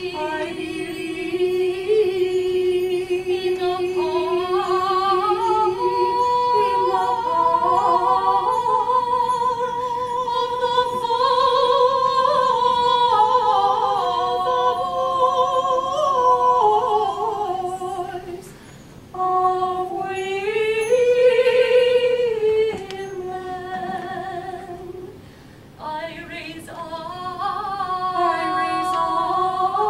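Women's choir singing a cappella in several-part harmony, holding long notes. The voices break off briefly twice, about two-thirds of the way through and again a few seconds later, before coming back in.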